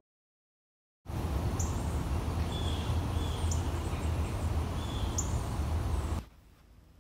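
Outdoor ambience: a few short bird chirps over a steady low rumble. It starts abruptly after a second of silence and cuts off about six seconds in.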